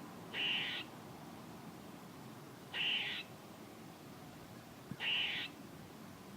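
Squirrel giving three harsh, buzzy calls, each about half a second long, spaced a little over two seconds apart.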